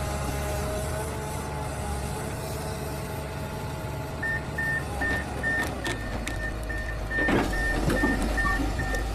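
Komatsu PC200 LC excavator's diesel engine running steadily as the machine tracks along a lowboy trailer deck. From about four seconds in, its travel alarm beeps about three times a second, and a few metallic clanks come in the second half.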